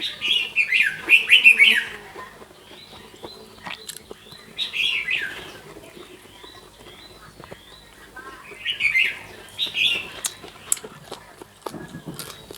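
Small birds chirping in three bursts of quick, high chirps, each a second or two long, with quieter gaps between.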